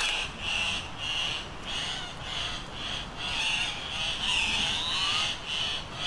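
Harsh animal calls repeated in an even pulse, about two a second, with faint whistled bird notes sliding up and down underneath.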